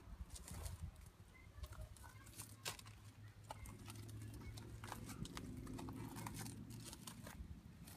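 Faint, irregular footsteps crunching on gravel, with a low steady hum coming in about three and a half seconds in and fading near the end.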